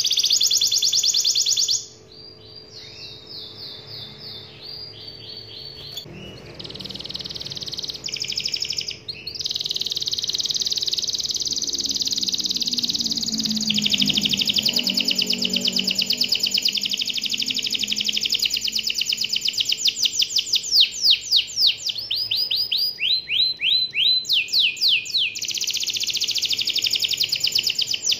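Domestic canary singing a long, unbroken song of fast rolling trills, changing from one trill to the next every second or two. The song is quieter for a few seconds near the start and has quick sweeping notes toward the end.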